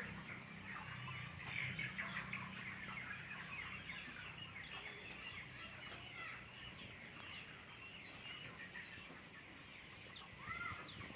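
A flock of chickens in a poultry shed, many birds clucking and chirping at once in a steady overlapping chatter, over a constant high-pitched hiss.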